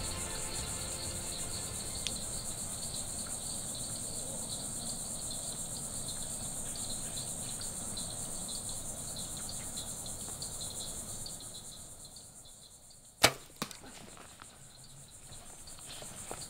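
Steady trilling of crickets and insects fades away. Then, about thirteen seconds in, a Bowtech compound bow is shot with one sharp crack, followed a fraction of a second later by a second, softer crack as the arrow hits the hog.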